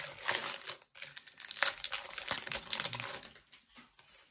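Foil Pokémon booster pack wrapper crinkling as it is opened and handled by hand; the crackling fades out near the end.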